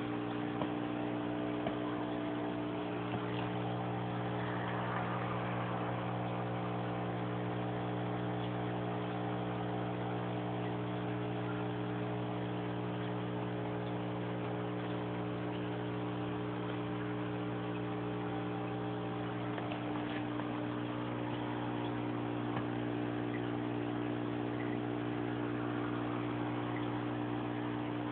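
Steady electrical hum of an aquarium pump, with a faint hiss of bubbling water from the air-stone bubble wall.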